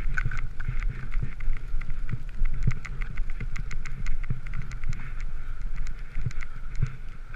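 Skis running and scraping over snow, with many small clicks and a steady low rumble of wind on the microphone.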